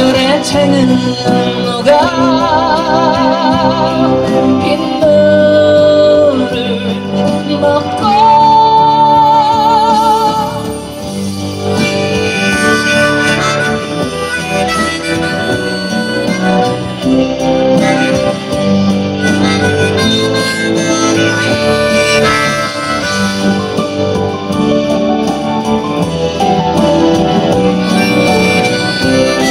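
Instrumental passage of a Korean folk-pop ballad, with no singing. A lead melody line wavers with vibrato, then holds a long steady note about eight seconds in, over steady band accompaniment.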